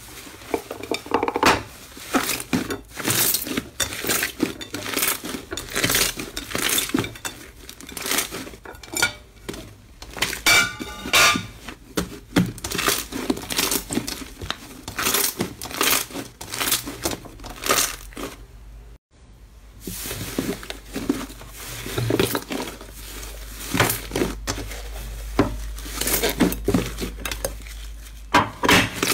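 Thick slime being pressed, kneaded and stretched by hand on a plate: a dense, irregular run of sticky clicks and pops, broken by a brief gap about two-thirds of the way through.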